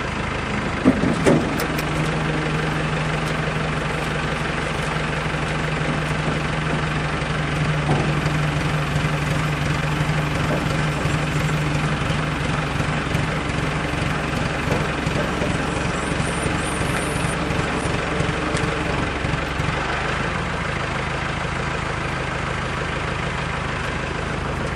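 Tractor engine running steadily while the baler's rebuilt hydraulic cylinder is tested. A low, steady tone rides over the engine from about two seconds in and fades away in the second half, as the hydraulics are worked. There is a short knock about a second in.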